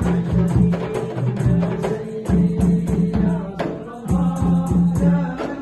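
Hand-beaten frame drums (rebana) playing a fast, steady rhythm of deep strokes, with a man's chanting voice over them in devotional zikir music.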